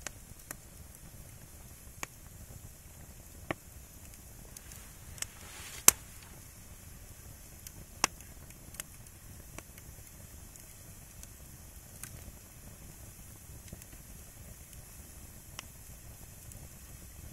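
Burning firewood crackling, with scattered sharp pops every second or two over a faint low rumble. The loudest pop comes about six seconds in.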